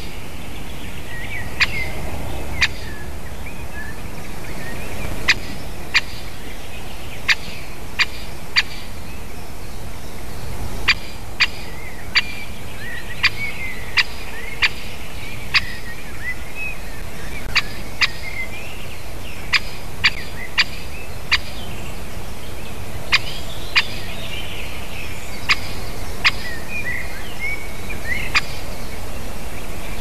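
Great spotted woodpecker giving sharp single call notes at irregular intervals, roughly one a second, with small birds twittering in between.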